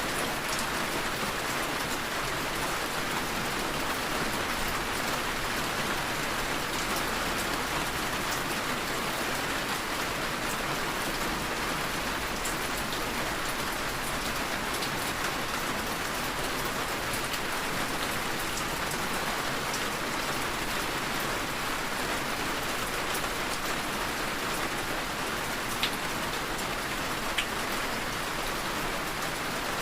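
Steady rain falling, a continuous even hiss of drops, with two sharper single drop ticks near the end.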